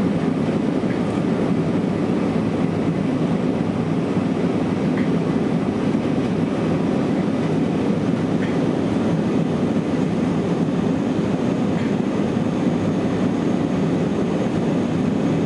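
Steady low rumble of cabin noise inside an Airbus A320-200 in flight: the drone of its CFM56 turbofan engines mixed with the rush of air along the fuselage.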